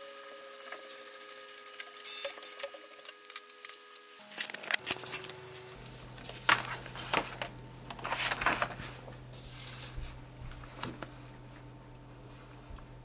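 Lego Mindstorms NXT robotic arm drawing with a pen, its sound sped up tenfold: a rapid, even clicking, about six clicks a second, for the first two seconds. After a cut there is a low steady hum with a few short noisy bursts.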